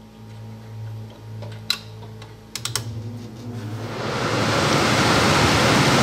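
A few sharp clicks, then the Trane gas furnace's circulating blower starts and spins up to a steady rush of air from about four seconds in. This is the furnace control running the fan because it sees an open high-limit switch, as it does when the furnace has overheated.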